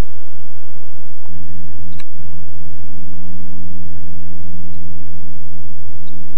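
A loud, steady low rumble, joined about a second in by a steady engine-like hum. A sharp click comes about two seconds in.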